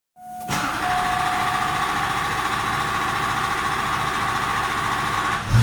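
Starter cranking the 6.6-litre V8 Duramax LB7 diesel of a 2001 truck on a hot start. It is a steady whine that runs about five seconds before it stops.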